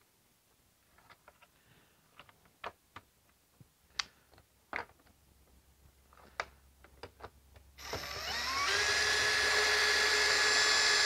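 Light clicks and taps of small hardware being handled and set in place. Then, about eight seconds in, a cordless drill/driver with a socket bit spins up and runs steadily, driving a bolt into the grille.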